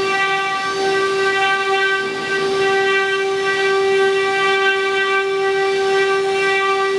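Twelve-spindle woodworking CNC router running, its spindles giving a steady whine as they carve relief designs into a wood board.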